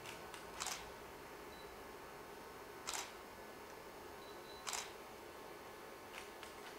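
Three short, sharp double clicks, about a second in, three seconds in and near five seconds, with a few fainter ticks, over a steady low hiss.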